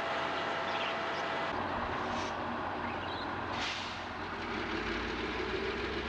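Loram rail ballast-cleaning machine at work: steady heavy diesel and machinery noise with a few brief high metallic squeals. About a second and a half in, a deeper, steady engine hum takes over.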